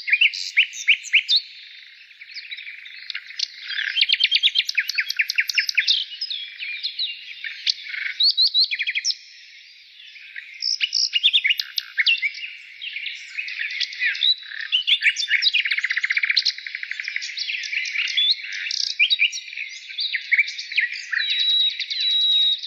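Many small songbirds chirping and twittering at once, with fast overlapping trills and short calls throughout.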